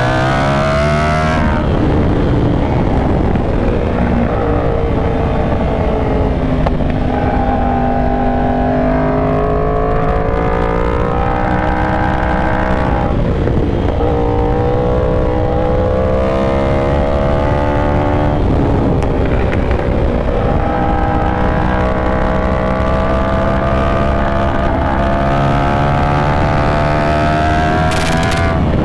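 Yamaha R1 inline-four sport bike engine heard onboard while riding canyon curves, its pitch climbing and falling as the throttle is opened and rolled off, with several sudden drops in pitch, over a constant rush of wind noise.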